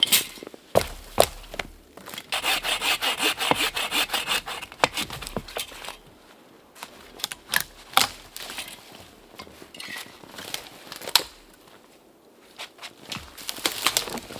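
Hand saw cutting through firewood: a quick run of rasping strokes for a few seconds, with scattered knocks and clicks of wood being handled before and after.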